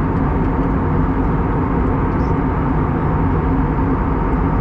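Steady cabin drone of an Airbus A321neo airliner at cruise: engine and airflow noise with a few steady hum tones running through it.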